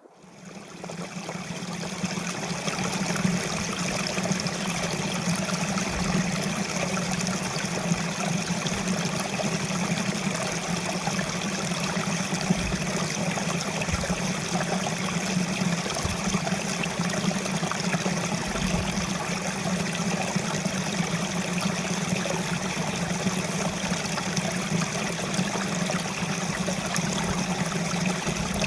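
Mountain stream rushing and splashing steadily, fading in over the first two seconds, with a few brief low thumps on the microphone.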